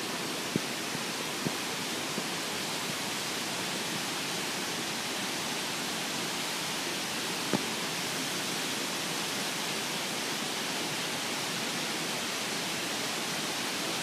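Steady rushing hiss of water, even throughout, with a few light clicks, the sharpest about seven and a half seconds in.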